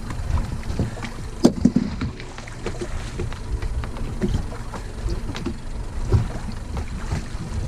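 Wind buffeting the microphone and water moving against a small boat's hull, with scattered knocks and clicks as a crab pot is hauled up hand over hand by its rope; the sharpest knock comes about a second and a half in.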